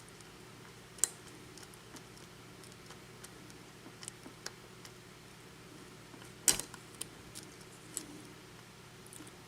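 Small, irregular metallic clicks and ticks of a lock pick and tension wrench working the pin stack of a Schlage-keyway KIK lock cylinder, with two sharper clicks about a second in and about six and a half seconds in. The picker is still feeling for feedback from pin 1, which has not set.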